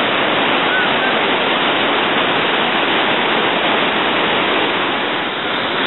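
The Rhine Falls, a wide, powerful waterfall, giving a loud, steady, unbroken rush of falling and churning white water.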